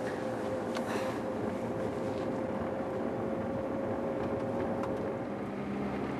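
A car driving: a steady drone of engine and road noise, with a thin steady whine that gives way to a lower hum about five seconds in.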